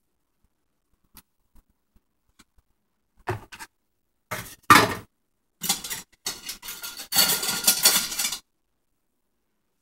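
A metal mixing bowl and kitchen utensils clanking and clattering against dishes, starting about three seconds in with a few short knocks and one loud clank, then a denser run of clatter lasting over a second.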